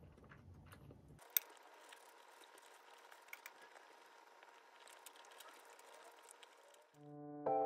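Chopsticks tapping and scraping against a ceramic plate while picking up food, played back sped up: quick light clicks over a faint hiss, with one sharper click about a second and a half in. Piano music comes in near the end.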